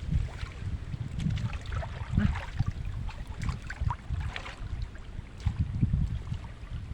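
Water sloshing and splashing in short, irregular bursts, with a constant low rumble underneath.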